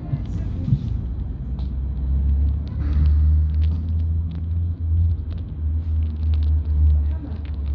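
Trolleybus in motion, heard from inside the passenger cabin: a steady low drone and rumble that grows louder from about three seconds in and eases near the end, with light ticks scattered over it.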